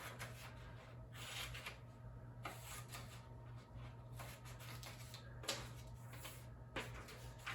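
Scissors snipping and paper rustling as pictures are cut from a paper worksheet: faint, irregular crisp rustles a second or so apart, over a low steady hum.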